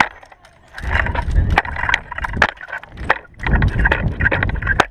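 Handling noise from a camera mounted on a Springfield drill rifle as the rifle is swung and caught. There are two rumbling gusts of air rush, about a second in and near the end, and many sharp clicks and knocks of hands striking the rifle.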